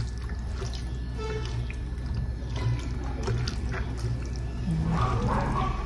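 Background music, with soft squishing and rustling of boiled potatoes and peas being mixed by hand in a glass bowl.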